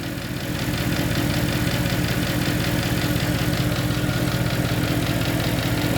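Mercedes-AMG engine idling steadily with the air conditioning running on full blast.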